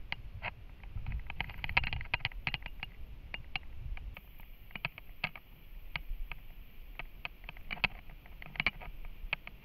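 Footsteps and rustling through dry leaf litter and undergrowth: irregular crackles and snaps coming in flurries, over a low rumble.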